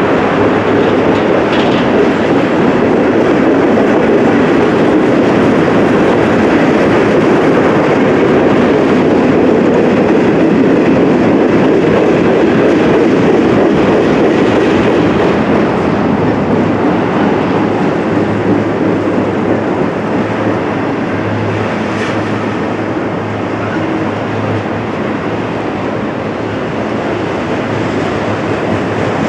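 Freight train rolling steadily past on the rails, its cars' wheels rumbling and clattering; a low steady hum joins about two-thirds of the way through.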